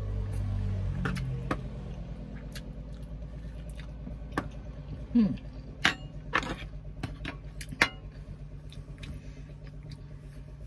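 Close-up eating sounds: chewing and wet mouth smacks with scattered sharp clicks, over a steady low hum inside a car's cabin.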